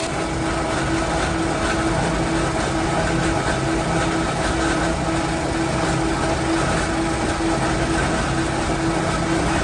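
Machinery in a sawdust biomass-pellet plant running steadily: a continuous mechanical hum with a steady drone over a rushing, grinding background.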